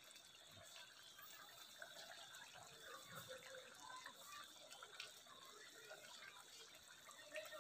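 Near silence: faint bubbling and popping of thick tomato-cashew curry gravy simmering in a steel kadai.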